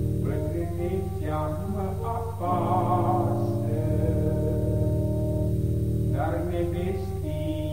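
Instrumental passage of a Romanian folk song: a melody line with wavering notes played over steady sustained accompaniment.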